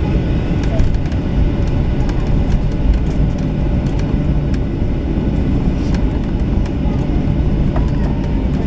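Cabin noise aboard a Boeing 737-800 taxiing after landing: a steady low rumble from its CFM56 engines at taxi power and the aircraft rolling over the apron, heard from inside the cabin.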